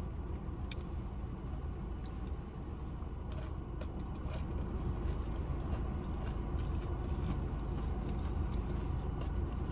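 A person chewing a mouthful of food close to the microphone, with scattered small wet mouth clicks, over a steady low background rumble.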